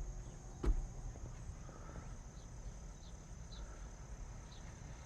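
Faint background with a steady high whine and sparse high chirps, typical of crickets, after two short clicks in the first second.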